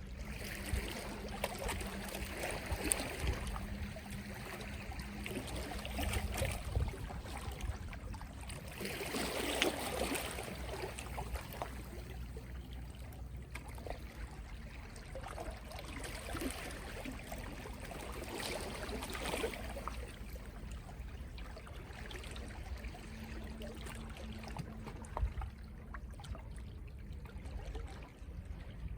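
Small, soft sea waves washing onto the shore, rising in gentle swells every few seconds. The biggest wash comes about ten seconds in.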